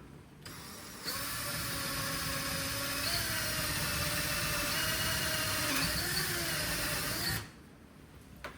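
Power drill boring a hole into a window frame. It starts softly about half a second in, then runs at a steady full speed for about six seconds and stops suddenly near the end.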